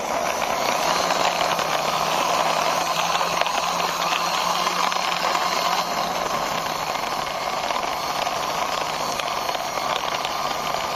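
Plastic toy car pushed by hand along a rough cement wall top: its plastic wheels give a steady gritty rolling noise, with a faint low hum underneath.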